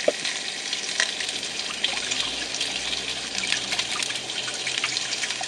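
Bacon frying in a pan: a steady sizzle with scattered small crackles.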